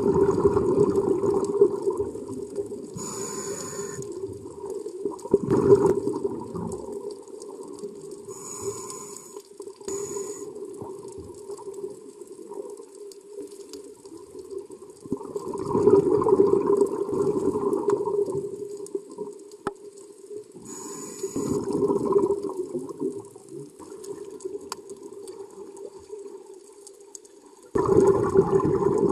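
Scuba diver breathing through a regulator, heard underwater: bursts of exhaled bubbles rumbling every few seconds, with shorter, higher hisses between them.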